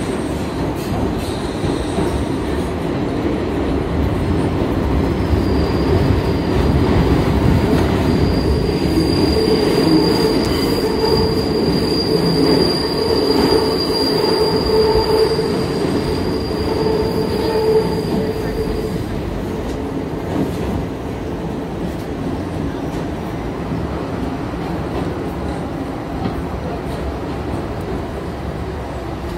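New York City subway train running, heard from inside the car: a steady rumble of wheels on the rails. A high, thin wheel squeal joins in about five seconds in and fades out after about nineteen seconds.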